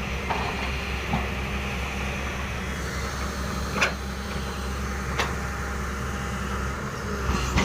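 Tracked excavator's diesel engine running steadily, with a few sharp knocks or clanks scattered over it, the loudest about four seconds in.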